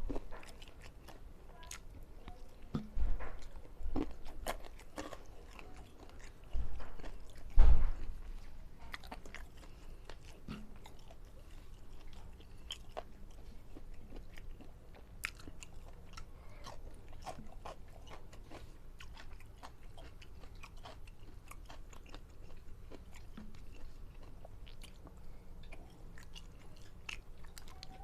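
Close-miked chewing and biting of food, with a steady run of small wet clicks and crunches. Between about three and eight seconds in there are a few loud dull thumps, the loudest near eight seconds.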